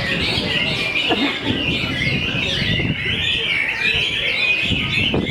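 Many caged Chinese hwamei (melodious laughingthrushes) singing at once in a contest class, a dense chorus of overlapping whistled phrases, over the low murmur of a crowd.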